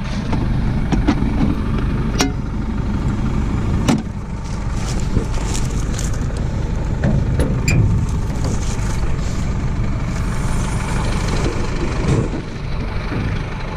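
Tractor engine idling steadily, with a few sharp metallic clanks and clicks over it.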